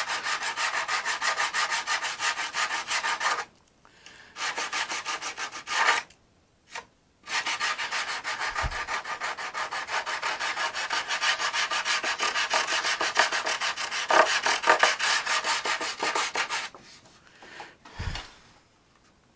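Sandpaper on a small hand sanding block rubbed rapidly back and forth over a hardened filler wing fillet on a balsa model airplane, knocking down the high spots. The strokes run steadily with two brief pauses and die away about three quarters of the way through.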